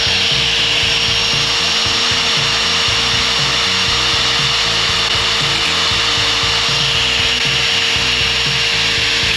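A handheld power tool running steadily while cutting, with a constant whine over loud grinding noise. It is switched off right at the end and starts to spin down.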